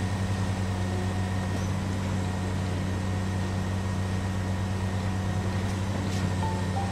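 Cement mixer truck's engine running with a steady low droning hum. A few short high notes of a tune come in near the end.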